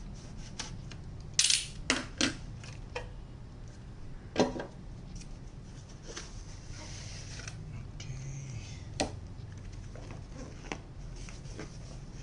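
Hard plastic packaging being handled: a clear plastic display cover and an action camera in its clear waterproof housing are pulled off their base and set down, giving a few sharp plastic clicks and knocks, the loudest in the first five seconds, with soft handling rustle between.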